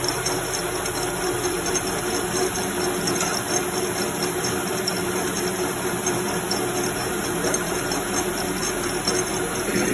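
Heidelberg paper-folding machine running, a steady mechanical hum with a constant tone and faint irregular ticking.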